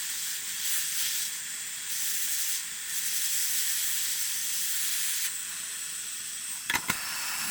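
Hot air gun blowing a steady hiss of air onto soldering paste on a silver chain joint, heating it until the paste melts. A couple of short clicks come near the end.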